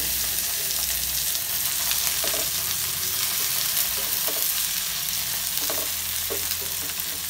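Oil sizzling steadily in a non-stick frying pan as leaf-wrapped fish parcels shallow-fry, with a spatula scraping the pan a few times as the parcels are turned.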